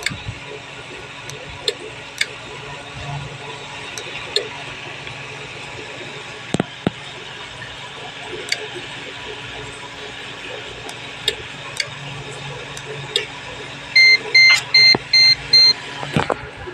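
Steady hiss with scattered small clicks, then, near the end, five short, loud, evenly spaced beeps of one pitch: keypad beeps from a Baofeng handheld VHF transceiver as its keys are pressed.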